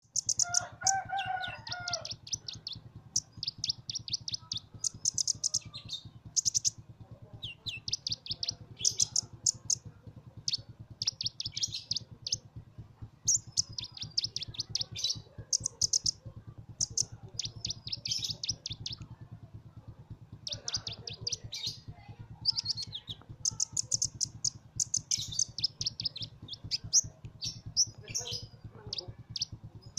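Sunbird singing: fast, high-pitched twittering trills in phrases of about a second, repeated with short gaps, over a steady low hum. A brief lower call sounds near the start.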